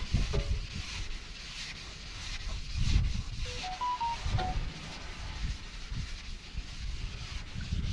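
Sandpaper rubbed by hand in repeated strokes over the flat painted rear panel of a Mercedes truck cab.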